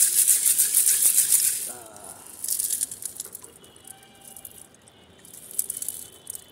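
Aquarium pebbles rattling and water sloshing inside a glass fishbowl as it is shaken to rinse the stones, loud for the first couple of seconds, then two shorter bursts of rattling around three seconds in and near the end. Water is poured from the bowl into a bucket.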